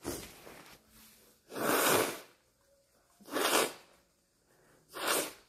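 A young woman sneezing into a tissue held to her nose: a softer burst at the start, then three strong sneezes about a second and a half apart, a sneezing fit from allergic rhinitis.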